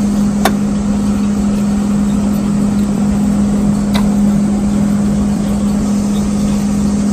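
A steady machine hum over a low rumble, with a couple of light metal clicks about half a second and four seconds in as a drive belt is worked onto the alternator pulley.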